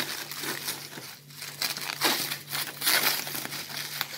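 Clear plastic stretch wrap crinkling and rustling in irregular handfuls as it is pulled and peeled off a rolled throw blanket.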